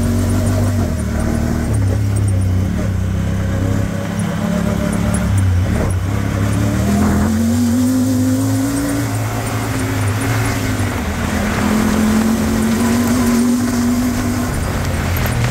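Honda Talon 1000R side-by-side's parallel-twin engine running while under way, its pitch rising and easing with the throttle. The pitch climbs steadily about halfway through.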